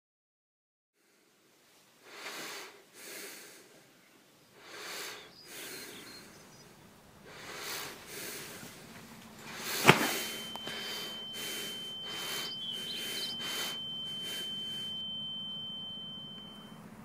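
Film sound design: a series of short breathy rushes of noise, then a single sharp bang about ten seconds in, followed by a steady high-pitched ringing tone, like ringing ears, over a low hum, which cuts off shortly before the end.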